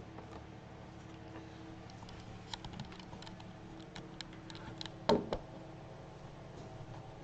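Light clicks and taps of small plastic parts being handled, a PC case's drive clips and its container of screws, with one louder knock about five seconds in.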